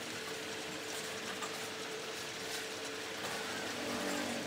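Steady, rapid mechanical clicking and rattling, like a ratchet or gear mechanism.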